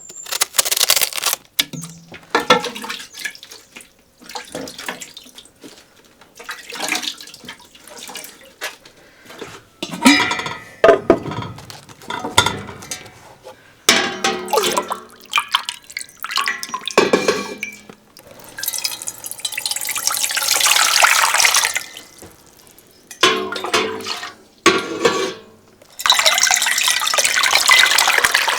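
Kitchen work with water: repeated clatter of dishes and utensils, and running, splashing water in two longer stretches of a few seconds, the second near the end.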